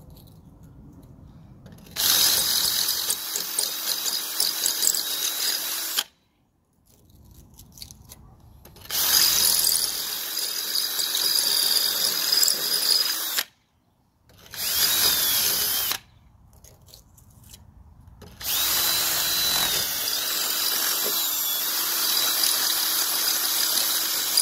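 Cordless drill with a masonry bit boring into brick, run in four bursts with short pauses between them: the motor whines steadily over a gritty grinding as the bit widens the hole to take a wall anchor.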